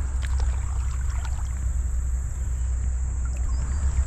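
Steady low rumble with a thin, steady high-pitched whine above it and a few faint clicks.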